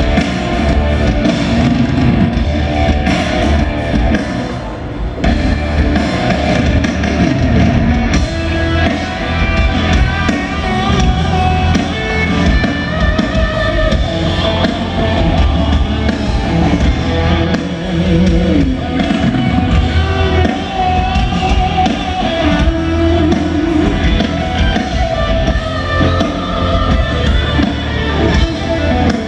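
Hard rock band playing live through a PA: electric guitars, drum kit and a singing voice.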